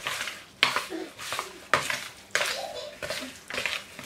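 Bare hands squishing and turning raw seasoned pork pieces in a plastic bowl to work in the seasoning: about five wet squelches and slaps, each dying away quickly.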